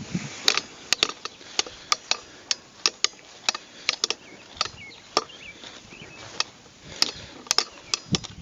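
Footsteps walking at a steady pace, short sharp steps about two a second.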